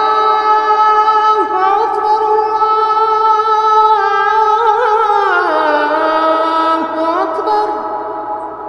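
A voice chanting in long held notes, with ornamented slides between pitches, fading out near the end.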